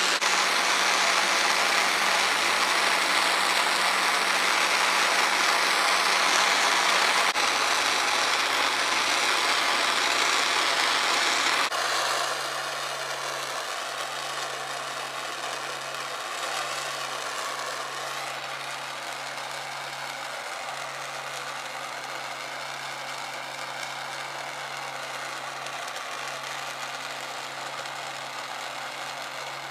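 Handheld torch flame hissing steadily as it heats a titanium exhaust head pipe. The sound changes abruptly twice, about 7 and 12 seconds in, and after the second change it is a quieter, thinner hiss with a low steady hum beneath.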